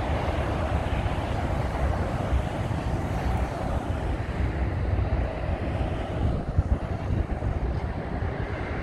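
Rolls-Royce Trent 7000 engines of an Airbus A330-900neo, a continuous jet rush heard from beside the runway as the airliner touches down and rolls out, thinning a little in the second half as it moves away. Wind buffets the microphone.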